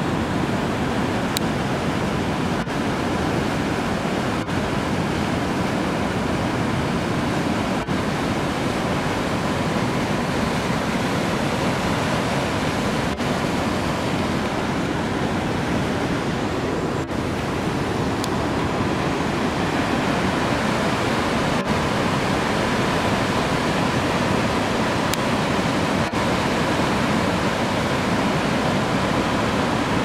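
Waterfall and whitewater rapids rushing steadily through a narrow rock gorge, an even, unbroken water noise. A faint steady tone sits underneath.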